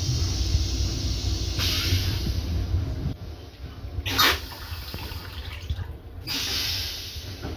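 Restroom toilet on a Metro-North M7 railcar flushing: a rush of water and air with a short, sharp hiss about four seconds in. A low rumble from the moving train lies under the first few seconds.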